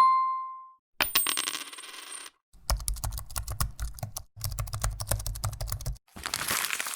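A run of short sound effects played back to back: a clean ding that fades within a second, a bright metallic jingle, two runs of rapid keyboard-typing clicks over low thuds, and a short hissing whoosh near the end.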